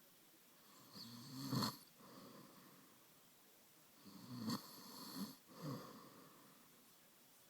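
A man snoring in his sleep: two loud snores about three seconds apart, each followed by a softer breath.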